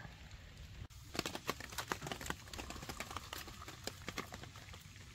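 Hot water poured from a small pot into a plastic mug, with many light, irregular clicks and taps.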